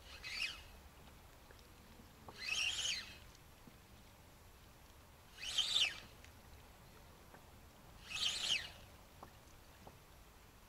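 Spinning reel cranked in four short bursts about every three seconds, a stepped jig retrieve: a few turns of the handle, then a pause while the lure sinks.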